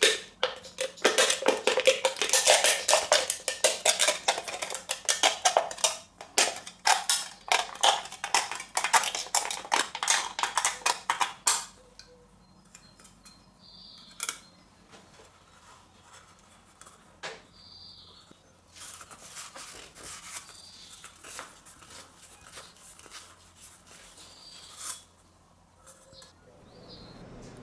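Thin aluminum drink can crackling and crinkling as it is flexed and twisted by hand to tear it into two halves: a dense run of sharp metallic clicks for about eleven seconds. After that come a few scattered clicks and taps as the cut halves are handled.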